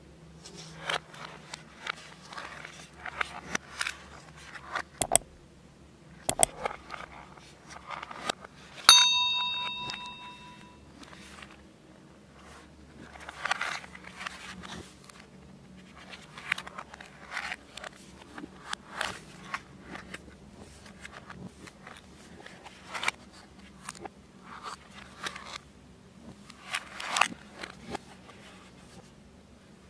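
Cardboard packaging and wired earbuds being handled: irregular rustling, scraping and light clicks as the earbuds and their cable are pressed into a card tray. About nine seconds in comes one sharp tap that rings on briefly like a small bell.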